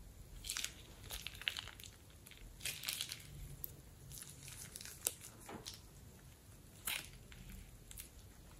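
Plastic piping bag crinkling and crackling in short, irregular bursts as it is squeezed flat and crumpled in the hand.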